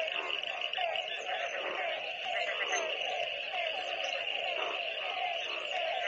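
A chorus of frogs calling in the monsoon rains: many short croaks, each falling in pitch, overlapping several times a second, over a steady high trilling.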